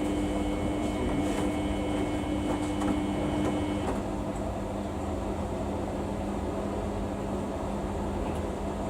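Samsung washing machine running through its Daily 40 wash: a steady motor hum with a low drone, and a higher whine that cuts off about four seconds in.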